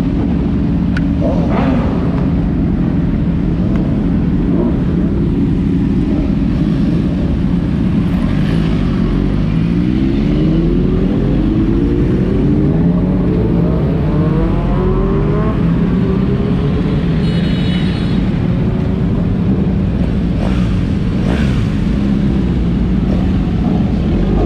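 Big sport motorcycles running, a steady heavy rumble; around the middle one engine rises in pitch for several seconds as it accelerates.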